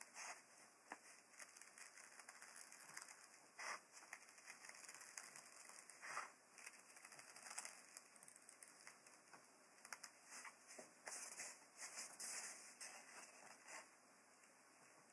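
Small pointed scissors snipping through paper in short, irregular cuts, faint.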